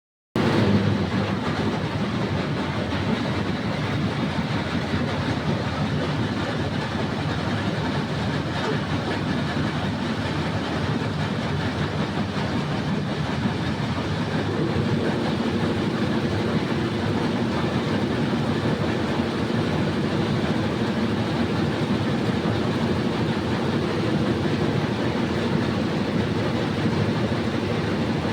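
Excavator engine running steadily under load, with a rattling mechanical clatter, and a steadier droning hum setting in about halfway through.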